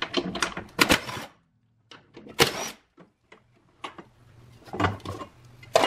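A Ryobi cordless driver runs in short bursts, backing out 14 mm seat-bracket bolts, amid sharp metallic clicks and clinks of the tool and the loose bolts.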